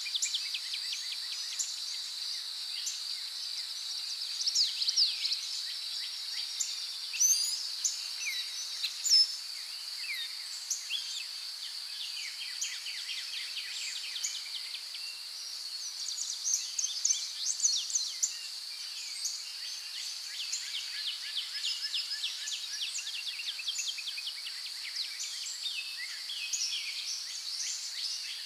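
Nature ambience: a steady high-pitched insect drone, with many birds chirping and whistling over it.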